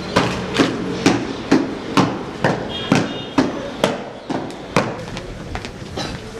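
Marching boots of two cadets striking a hard floor in step, a sharp stamp about twice a second, growing fainter near the end.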